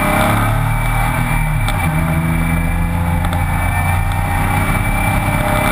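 BMW E36 race car's engine running hard on track, heard from inside the stripped cabin along with wind and road noise. Its note dips briefly about half a second in, then holds steady.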